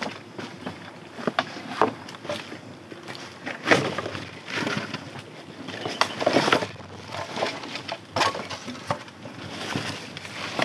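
Irregular crackling and rustling of dry leaves, twigs and bamboo, with sharp clicks and a few louder bursts.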